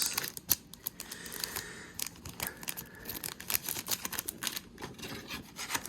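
Trading cards and foil card-pack wrappers being handled: a string of irregular small clicks, snaps and crinkles.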